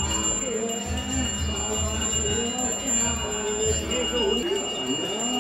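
Balinese priest's brass hand bell (genta) rung continuously, giving a steady high ringing tone, over voices chanting.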